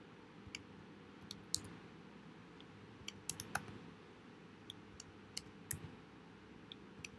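Faint computer keyboard typing: about a dozen sharp key clicks at uneven spacing, with a quick run of several about three seconds in.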